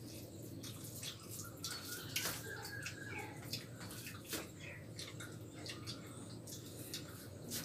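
Eating sounds of two people eating rice with their fingers from steel plates: soft, wet clicks and smacks from mixing and chewing, coming many times.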